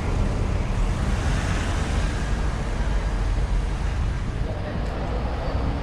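Street traffic: a motor vehicle's engine rumbling low and steady close by, over general road noise.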